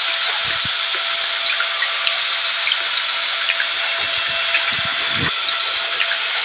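Steady mix of rain and a running vacuum cleaner: a dense, even hiss with a constant high whine and scattered small patters, unchanging throughout.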